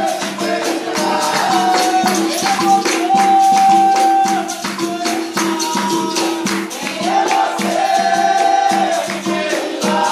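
Capoeira roda music: berimbaus, the gunga among them, struck in a steady rhythm with pandeiro jingles and rattles, and voices singing long, gliding notes over them.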